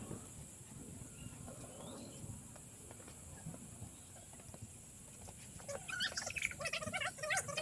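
Snow being scooped and packed by hand, faintly. About six seconds in, a dog starts whining and yipping in a quick run of short, high calls.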